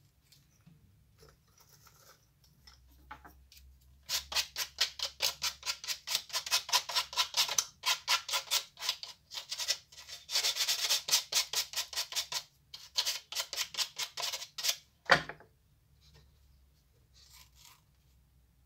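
A small strip of wood sanded by hand on a sanding block: quick back-and-forth rasping strokes, about three or four a second, starting about four seconds in, with two short breaks. A single sharp knock follows just after the sanding stops.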